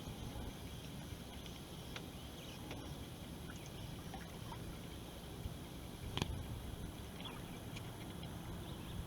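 Water trickling and lapping along a sea kayak's hull under sail, with a steady low wind rumble on the microphone and a single knock about six seconds in.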